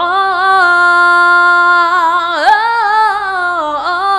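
A woman singing along in long held notes with vibrato, close to the microphone, the pitch sliding down and back up about halfway through and again near the end. A brief click sounds at the halfway slide.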